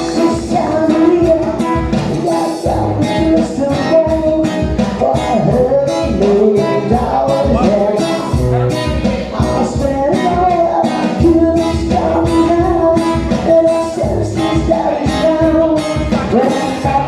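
Live band music: a rock song with a steady drum beat, guitar and a wavering melodic lead.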